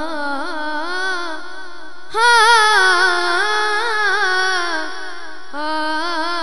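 A boy's voice singing a naat unaccompanied, in long drawn-out wavering melodic phrases with no words made out. From about two seconds in to about five and a half seconds the phrase is louder and higher.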